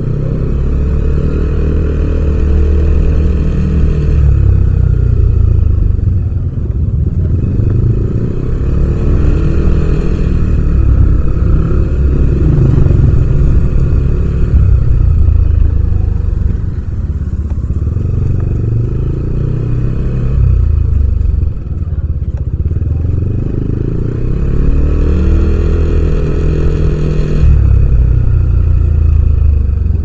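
Yamaha Aerox 155 scooter's single-cylinder four-stroke engine heard from the rider's seat while riding, speeding up and easing off several times as the revs rise and fall.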